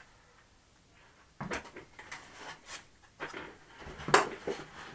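Handling noises: a battery pack being moved about and fitted into a foam airframe, in a few short knocks and rustles, the loudest a sharp click about four seconds in.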